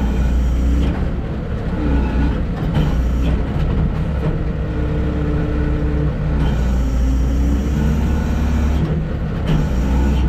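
SkyTrak telehandler's diesel engine running steadily, heard from the cab, with a whine that comes and goes over it as the fork carriage is worked toward a work platform.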